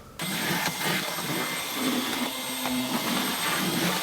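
A power tool starts abruptly and runs steadily with a harsh, hissing noise carrying a few thin high tones.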